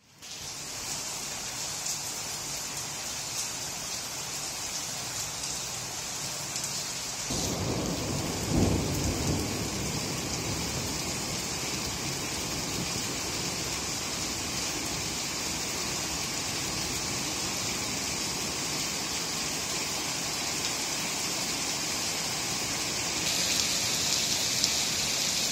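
Heavy thunderstorm rain, mixed with small hail, pouring steadily onto a street and pavement. A deep rumble of thunder breaks in about seven seconds in and peaks a second later. The rain grows louder near the end.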